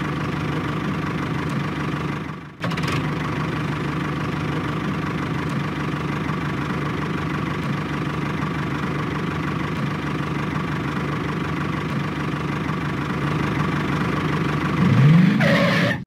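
A tractor engine running steadily at idle, with a constant even hum. It cuts out for a moment about two and a half seconds in and picks straight up again. Near the end it gets louder and sweeps up and back down in pitch.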